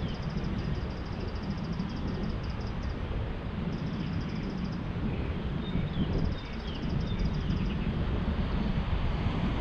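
Steady low outdoor rumble, like wind on the microphone or distant traffic, with a rapid, high-pitched trill that comes in three bursts.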